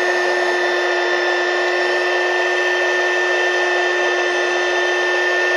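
Buildskill 400 W mini heat gun running on its high (400) setting: a steady fan whine over the rush of blowing air.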